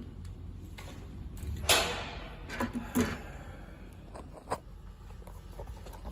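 A few sharp mechanical clicks and clacks from a semi-automatic soldering machine being worked and adjusted by hand. The loudest comes a little under two seconds in, with a short hissing tail; smaller ones follow about a second and again nearly three seconds later.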